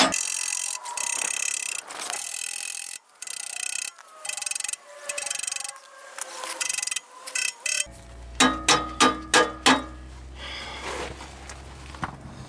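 Hand ratchet wrench working the exhaust clamp nuts on a car's resonator pipe joint: fast continuous ratcheting broken by short pauses, then a steady run of separate clicks about five or six a second, beginning about eight seconds in.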